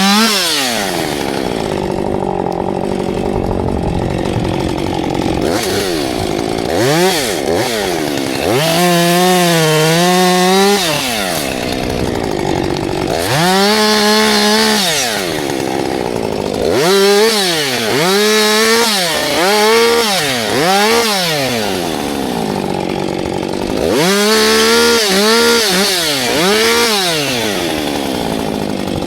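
Husqvarna two-stroke chainsaw revved up to a high whine and let back down over and over: some long holds at full throttle, then a run of short quick blips of the throttle about once a second, dropping back to a lower rougher note between.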